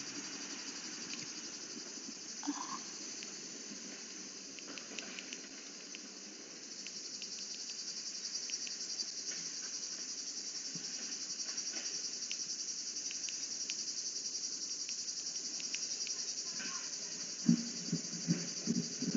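Steady high-pitched insect chorus with a fast pulsing buzz, a little louder from about a third of the way in. A few faint clicks, and near the end several low thumps and rustles of handling close to the microphone.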